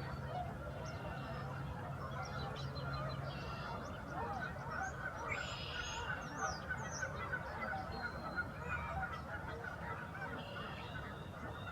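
A large flock of geese honking, many short calls overlapping into a dense, continuous chorus. A steady low hum underlies the first few seconds.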